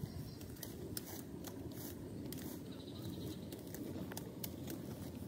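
Faint, crisp irregular snaps and rustling of rice seedlings being pulled up by hand from a muddy nursery bed, over a low steady background noise.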